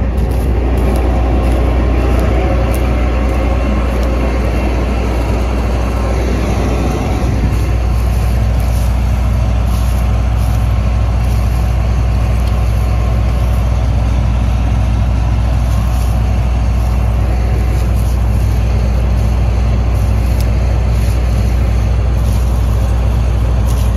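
Combine harvester's engine running steadily, a loud low drone. Some of the mid-range noise eases about seven seconds in.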